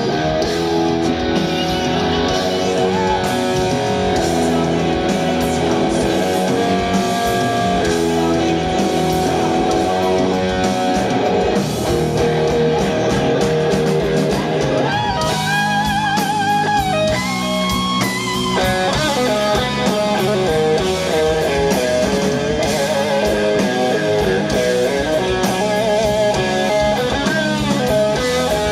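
Live rock band playing, with electric guitar to the fore. About halfway in, a lead line of long, wavering notes comes in over the band.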